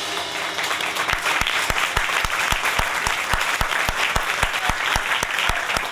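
Audience applauding. About a second in, a bass drum starts a steady beat of about four strokes a second under the applause.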